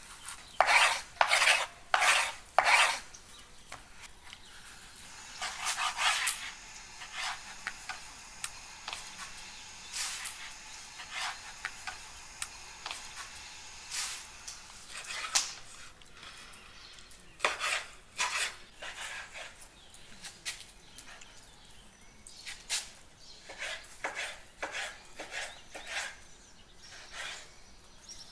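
Food-preparation handling sounds: four quick, loud scraping strokes at the start, then scattered lighter scrapes and clinks of kitchen utensils.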